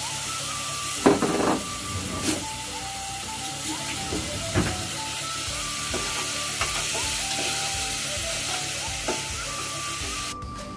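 Diced onions, celery, carrots and ground beef sizzling in oil in a frying pan, a steady hiss that cuts off suddenly near the end, with a few short knocks along the way.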